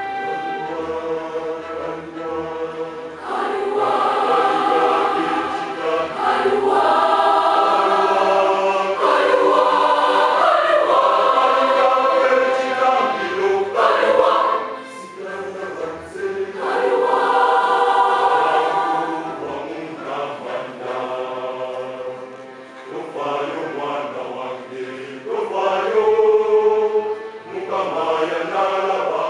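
A large school choir of boys and girls singing together, in phrases that swell loud and drop back.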